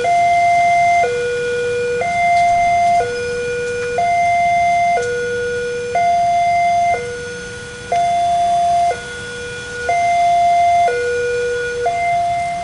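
Indonesian-type electronic level-crossing warning alarm sounding, signalling an approaching train: a two-tone signal alternating evenly between a higher and a lower note, each held about a second.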